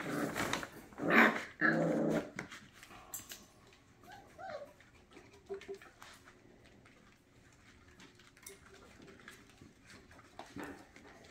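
Puppies growling and whimpering at play, loudest in the first two seconds, followed by quieter short cries and scattered light clicks and knocks.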